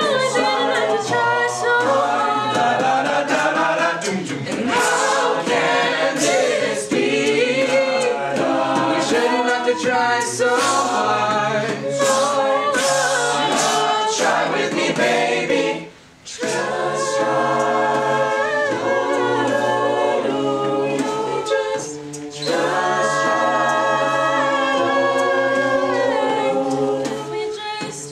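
Mixed-voice a cappella group singing a pop song, lead vocals over layered backing harmonies with beatboxed vocal percussion. The whole group breaks off for a moment just past halfway, then comes back in.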